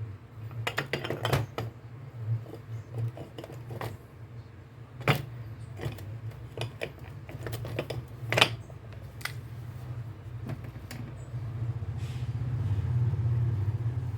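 Scattered small metal clicks and knocks of starter-motor parts being handled and fitted by hand, the sharpest about five and eight and a half seconds in, over a steady low hum.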